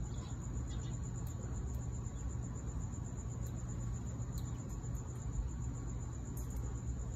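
Cricket trilling steadily at a high pitch over a low background rumble, with a few faint, sharp clicks scattered through.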